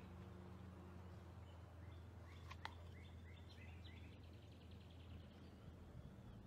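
Faint outdoor ambience with small birds chirping: scattered short chirps from about two seconds in, a single sharp click, then a quick trill a little past the middle, over a low steady hum.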